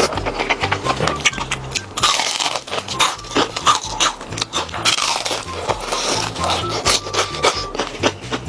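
Background music with a stepping bass line, over close-miked crunching and biting of food, with many sharp clicks and short noisy bursts.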